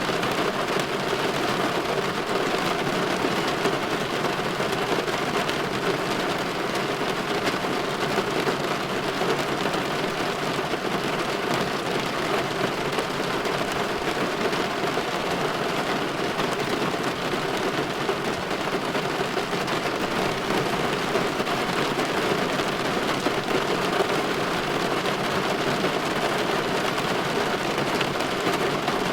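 Steady rain falling on window glass, an even hiss with no breaks or single loud events.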